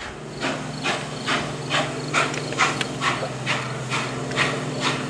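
Steam locomotive working under steam, its exhaust chuffing in an even beat of about two chuffs a second over a steady low hum.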